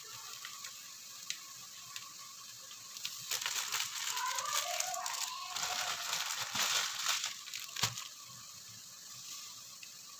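Diced lamb, garlic, onion and tomato sautéing in oil in a stainless steel pot: a crackling sizzle, busiest through the middle, with one sharp pop about three quarters of the way in.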